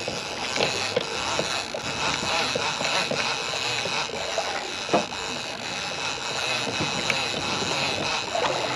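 Conventional saltwater reel in a boat's rod holder being cranked steadily, reeling a hooked fish up from depth, over a steady hiss of wind and water with a few light clicks and a knock about halfway through.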